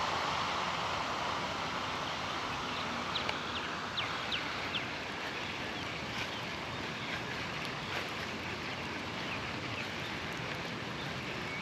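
Steady outdoor hiss with a few faint short ticks about three to five seconds in.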